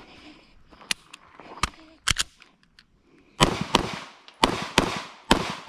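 Walther PDP pistol fired six times in three quick pairs, about a third of a second between the shots of each pair, each shot with a short echo tail. A few fainter sharp snaps come in the first two seconds.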